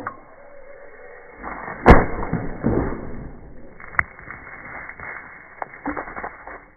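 A plastic-bottle rocket launching: a sharp pop as the pressurised bottle lets go, with a rush of escaping air and water for about a second after it. A single sharp crack follows about two seconds later.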